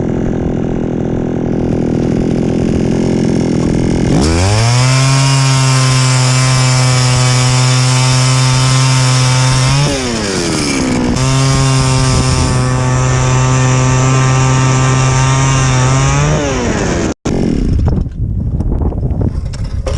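Gas-powered ice auger's small engine idling, then revved up to full speed about four seconds in and held steady for about six seconds while drilling. It drops off briefly, then is revved and held again for about five seconds before winding down. The sound cuts off abruptly near the end.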